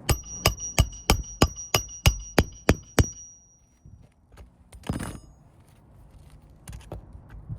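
Hand hammer driving a roofing nail into a shingle: about ten quick strikes at roughly three a second, each with a ringing metallic ping, then one more knock a couple of seconds later.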